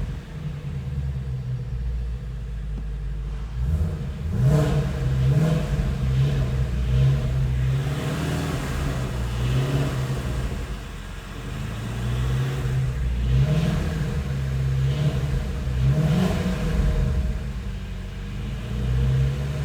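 A 2018 Ford Mustang GT350's 5.2-litre flat-plane-crank V8 runs through several light rises and falls in revs, with an engine rattle in the 2,000–3,000 rpm range. The owner takes the rattle for piston slap. Ford says this piston rattle is a normal trait of the engine's forged aluminium pistons.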